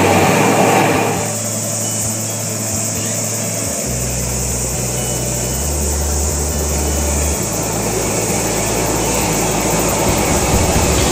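Gas burner running steadily into a ceramic-fibre blanket furnace, a continuous rushing noise of the flame while bronze is being melted.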